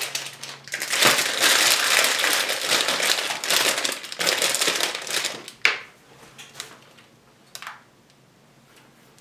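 Loud crinkling and crackling, as of something being crumpled or handled, lasting about five and a half seconds, then a few faint taps.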